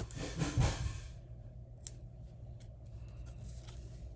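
Rustling and crinkling of paper and a plastic-backed adhesive sheet as foam dimensionals are handled and pressed onto a paper label, loudest for about the first second. A single sharp click comes near two seconds in, then faint handling, over a low steady hum.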